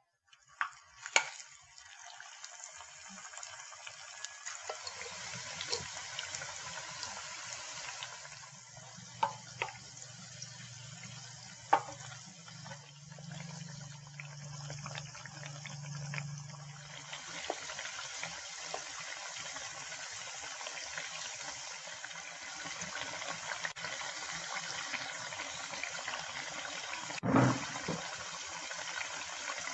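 Tempe and egg frying in hot cooking oil, a steady sizzle. A few sharp clicks come through it, and there is a louder knock near the end.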